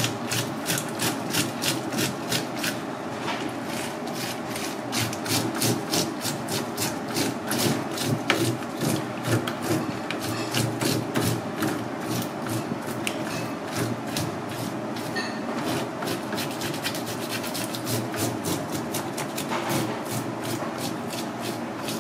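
Scales being scraped off a whole fish, sold as razor fish, with a hand tool: quick repeated rasping strokes, a few a second, going on throughout.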